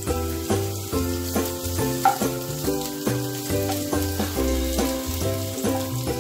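Chopped garlic sizzling in hot olive oil in a wok, stirred with a wooden spatula. Background music with a steady beat plays over it.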